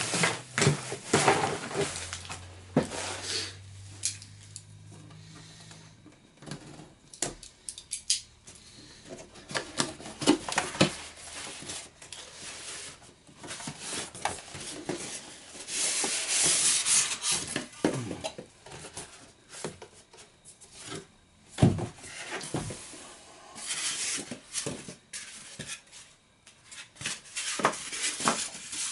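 Cardboard box and white foam packaging being handled and pulled apart: irregular rubbing, scraping and rustling with scattered knocks and taps, and a longer stretch of scraping about halfway through.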